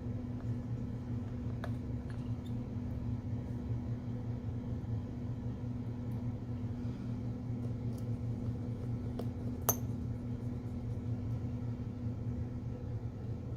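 Steady low electrical hum, with a few faint small clicks and one sharper click about ten seconds in, as small tools and parts are handled during an iPhone 6s reassembly.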